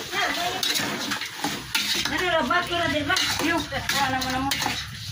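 Chicken pieces being stirred in a rice-cooker pot with a utensil, which scrapes and clinks against the pot while the meat sizzles.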